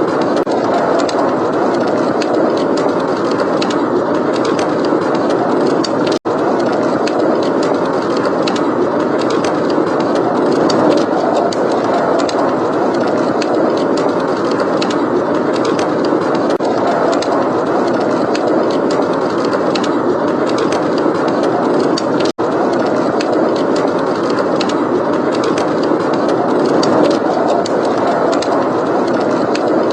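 Steady rushing wind of a snowstorm blizzard, with a wood fire's crackles and pops scattered over it. The sound cuts out for an instant twice, about six seconds in and near the twenty-two-second mark.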